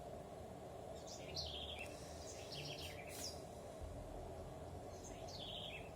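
A bird singing in the background: a short phrase of quick descending chirps, heard about a second in and repeated near the end, over a faint steady hum.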